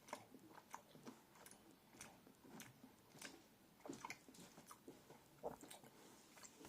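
Faint chewing of a piece of Galaxy Smooth milk chocolate, with irregular wet mouth clicks and smacks several times a second.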